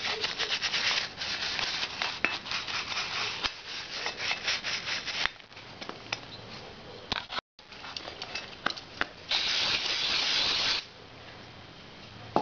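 A gloved hand rubbing at the valve in a Harley-Davidson Evo Sportster cylinder head. There is gritty rubbing in quick strokes for about five seconds, then scattered light clicks, and a steady rushing noise about a second and a half long near the end.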